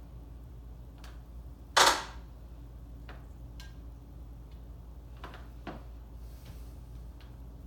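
One sharp, loud knock about two seconds in, with a few light clicks and taps before and after it, from tools and engine parts being handled on a workbench.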